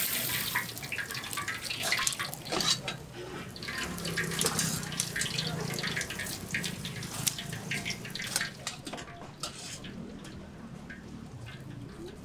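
Metal tongs clicking against a stainless steel pan and kitchen scissors snipping through crispy deep-fried squid, a run of short sharp clicks and crunches. Hot oil is still sizzling at the start and dies away within the first second.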